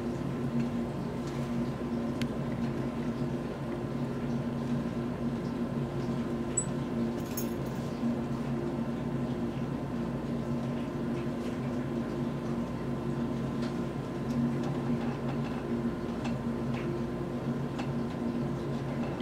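Steady low hum of room tone with a faint steady high tone, unchanging throughout, with a few faint clicks.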